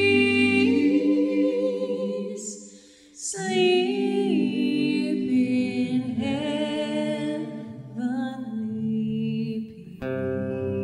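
Voices singing unaccompanied, holding long notes with vibrato, with a short break about three seconds in. Near the end an acoustic guitar comes in strumming.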